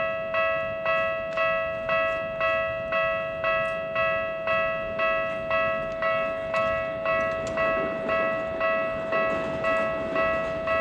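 Japanese level-crossing warning alarm on the Tokyu Setagaya Line ringing, an even bell-like strike about twice a second over a steady ringing tone: the crossing is signalling that a train is approaching.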